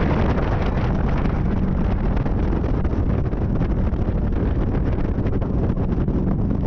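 Bass boat running at speed under its Yamaha 150 outboard: heavy wind buffeting on the microphone over the steady drone of the motor and the hull on the water.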